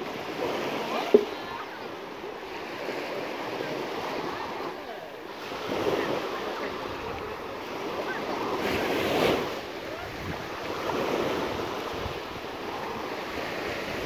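Small sea waves washing onto the shore, swelling and easing every few seconds, with wind buffeting the microphone. A single sharp click comes about a second in.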